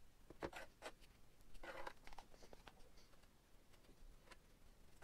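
Wooden posts and blocks handled on a plywood panel: a few light knocks in the first second and a short scrape a little later, with small ticks between.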